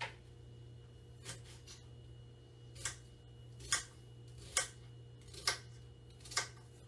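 Kitchen knife slicing half an onion: about seven short, crisp cuts, roughly one a second, the later ones louder.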